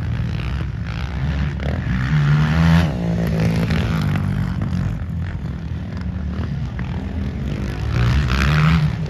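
Several racing quad (ATV) engines revving on a motocross track, their pitch rising and falling as the riders work the throttle. They swell louder about two seconds in and again near the end as quads pass close by.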